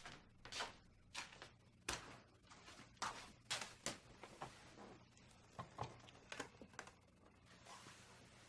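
A person moving about a small room: more than a dozen soft knocks and rustles at irregular intervals, over a faint steady low hum.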